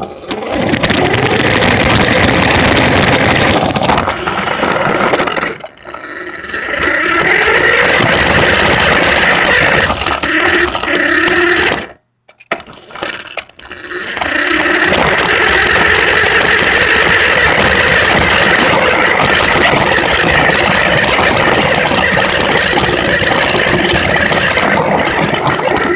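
Radio-controlled truck running and driving, its motor and drivetrain loud and steady. It dips briefly about six seconds in and cuts out for a second or two about halfway through before starting again.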